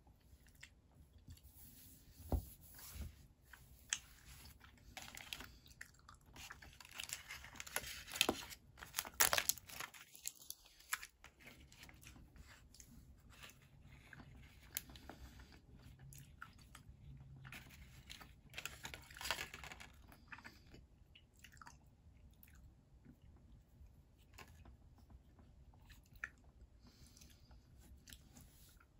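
Close-up chewing and crunching of a thin chocolate egg shell, with crisp bites and crackles that are densest and loudest in two spells, a few seconds in and again around the middle.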